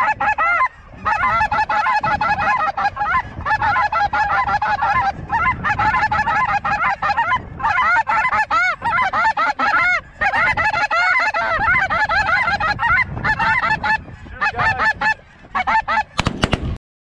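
A huge flock of snow geese calling overhead: a dense, continuous din of many overlapping calls that cuts off abruptly near the end.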